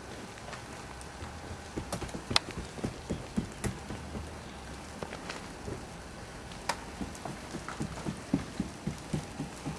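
Melting wet snow dripping and pattering, with irregular sharp drips. In the second half comes a run of soft thumps, about two a second.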